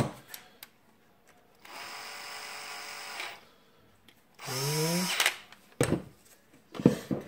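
Cordless drill/driver unscrewing screws from a small drill motor: a sharp click, a steady whir of about a second and a half, then a second, louder run whose pitch rises as it speeds up. Knocks and clicks of the parts being handled follow near the end.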